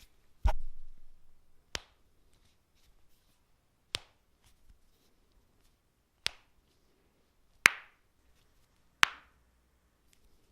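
Human joints cracking: six sharp pops, one every one to two seconds. The first comes with a dull thud and a longer tail.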